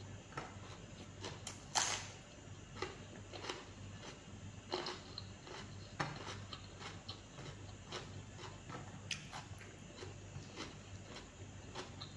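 A person eating close to the microphone: chewing and mouth smacks as she eats rice and fish by hand, heard as irregular small wet clicks. The sharpest click comes about two seconds in.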